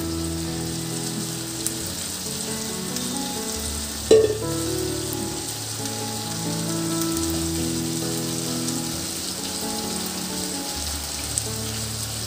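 Hot tempering of oil, garlic and dried red chillies sizzling in a pot of lentil-tamarind rasam (pappu charu), the surface frothing with a steady hiss. It plays over steady background music, with a single clunk about four seconds in.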